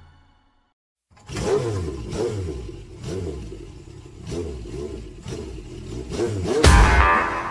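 A song fades out into a moment of silence, then the next track opens with a recorded car engine revving up and down over and over, with a loud burst near the end.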